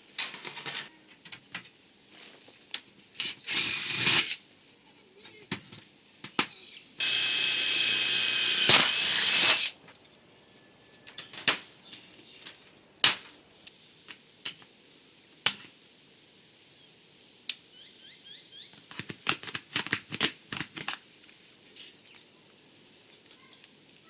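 A power drill running in two short bursts, the second about three seconds long, with scattered sharp knocks and taps between and after them.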